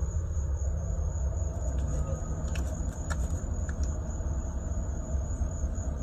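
Street background noise: a steady low rumble under a steady high-pitched insect drone, with a few faint clicks in the middle.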